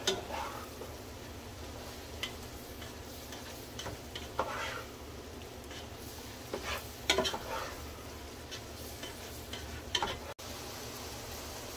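A spoon stirring sautéing onion, bell pepper and celery in a pot, with the vegetables sizzling softly in oil and chicken drippings. A few short, louder scrapes of the spoon against the pot are spread through it.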